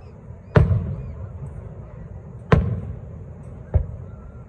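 Aerial firework shells bursting: three sharp booms, each trailing off in reverberation. The first comes about half a second in, the second about two and a half seconds in, and a weaker third about a second after that.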